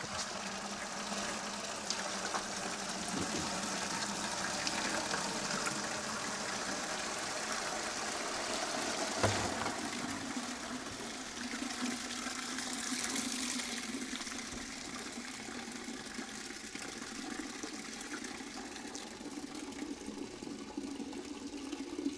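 Water pouring from a bucket into a clear tub and draining out its bottom through a 4-inch corrugated perforated drain pipe, a steady rushing of water that softens after about ten seconds. A single knock about nine seconds in.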